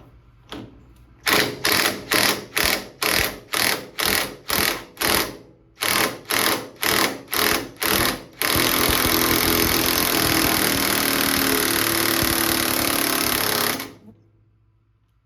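Impact wrench hammering on the forcing screw of a steering-wheel puller: about twenty short bursts, roughly three a second, then one steady run of about five seconds that cuts off. The wheel is seized on the steering shaft and does not come free.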